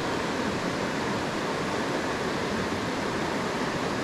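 Steady rush of a small rocky stream flowing over a riffle.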